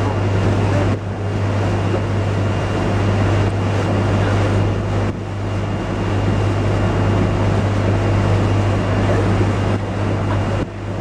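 Tour boat's engine running steadily under way, a deep constant hum over a continuous rush of wind and water noise.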